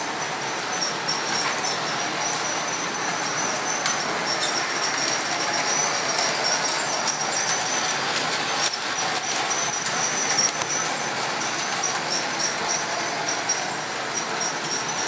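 Large-scale model train, a small 0-4-0 locomotive pulling nine cars, running steadily around a tight circle of track: continuous rolling rumble of wheels on rail with an intermittent high-pitched squeal.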